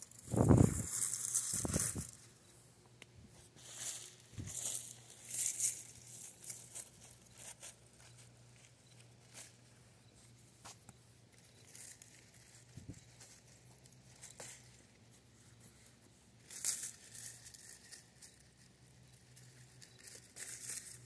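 Tomato plant leaves and stems rustling and tearing in short bursts as ripe tomatoes are pulled off by hand. Near the start there is a loud low buffet of wind on the microphone.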